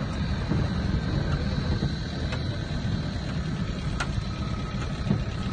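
Engine and road rumble of a vehicle driving along a dirt track, heard from on board, with a couple of sharp knocks about two and four seconds in.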